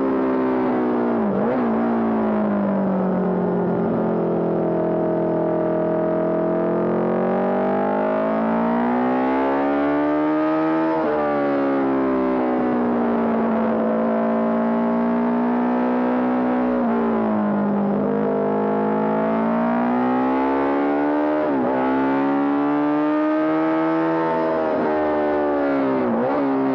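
Honda CB750 Four racer's air-cooled inline-four engine running hard under race load, its pitch climbing and falling repeatedly as it accelerates and slows, with several quick sharp dips in revs at gear changes.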